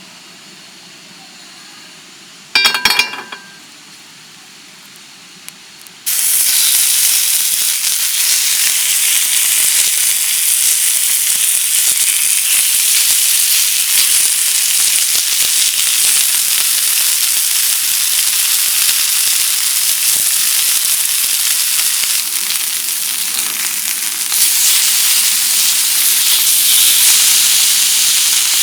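Food sizzling loudly in a hot pan, starting suddenly about six seconds in as it hits the heat and growing a little louder near the end. A short, loud sound comes just before it, about three seconds in.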